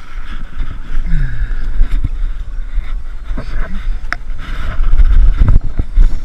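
Rumbling wind and handling noise on a body-worn camera's microphone, with scattered knocks and scrapes as a climber works down a rope over sandstone boulders; it grows loudest about five seconds in.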